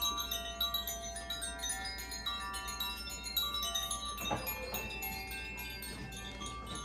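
Makino-style Advance chimes played in a steady stream of struck notes, each ringing on so that many clear tones overlap and sustain together. A short knock about four seconds in.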